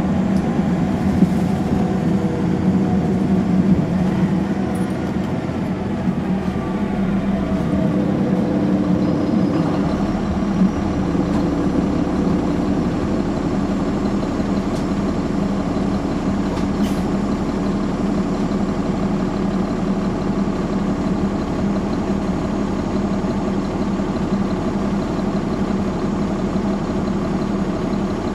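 Caterpillar C13 ACERT diesel engine of a 2009 NABI transit bus running, its pitch winding down over the first several seconds, then running steadily at a low, even pitch.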